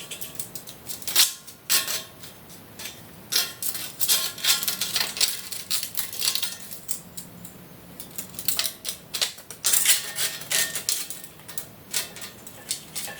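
Irregular light metallic clinks, taps and clatter of steel parts and hand tools being handled and set down while measuring and marking fork cross supports.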